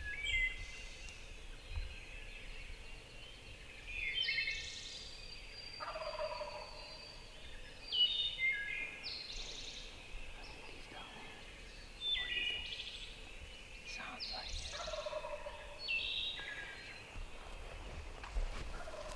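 A wild turkey gobbler gobbling again and again, several times, with other birds calling around it.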